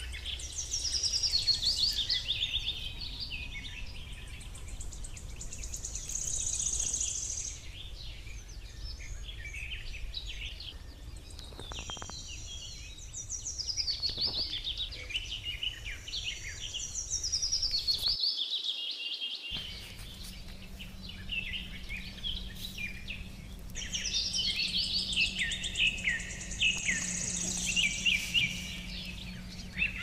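Songbirds singing and chirping almost without pause, with many quick high calls and repeated falling runs of notes, over a low rumble.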